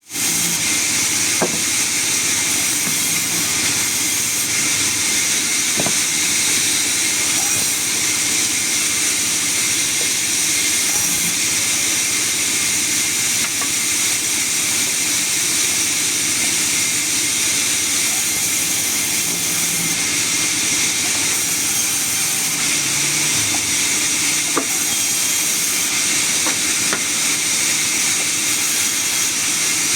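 Sawmill saw cutting mahogany: a steady, even hiss over a low machine hum, with a few faint clicks.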